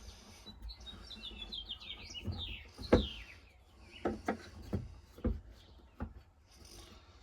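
A songbird sings a quick run of falling chirps, then a handful of sharp knocks or taps follow, the loudest about three seconds in.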